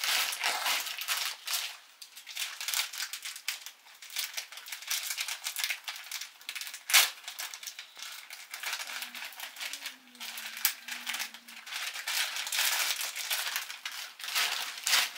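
Plastic noodle packets crinkling and rustling as they are handled and opened, a steady patter of small crackles with one sharper crackle about seven seconds in.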